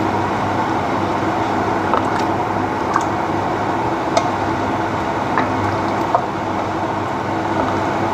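A wooden spoon stirs a liquid tomato stew in an enamelled pot, with a handful of light knocks of the spoon against the pot. A steady mechanical hum runs underneath.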